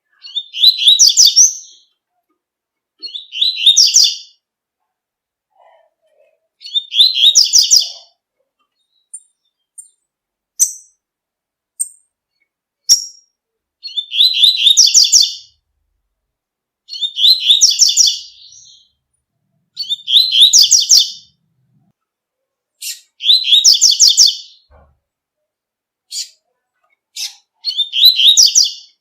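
Double-collared seedeater (coleiro) singing its 'tui-tui' song: eight short, fast phrases of high notes repeated every few seconds. A few single chips fall in a pause near the middle.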